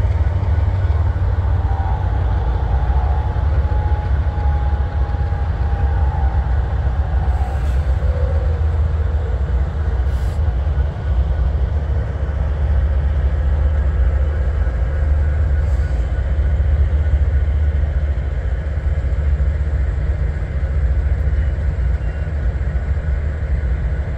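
Several Union Pacific diesel locomotives rumbling past at slow speed, a deep steady engine rumble. In the first several seconds a faint thin whine rides on top, dropping in pitch about eight seconds in.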